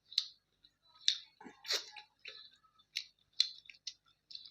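A person chewing food close to the microphone: irregular wet clicks and smacks of the mouth, a few each second.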